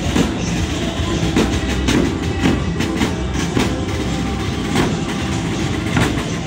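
A small marching band playing: brass horns over a bass drum beating about twice a second.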